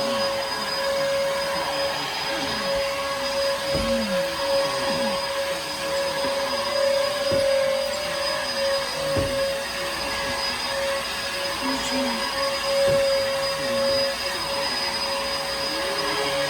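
Bissell vacuum cleaner running steadily, its motor holding a steady whine while lower tones of the running machine rise and fall.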